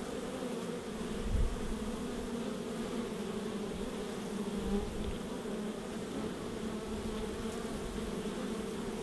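Honey bees buzzing at a hive entrance: the steady hum of many wings, with a brief low thump about a second and a half in.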